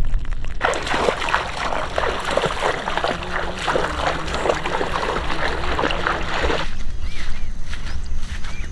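Feet wading through shallow water, splashing and sloshing steadily, cutting off suddenly about six and a half seconds in. A quieter stretch follows with a few short rising chirps.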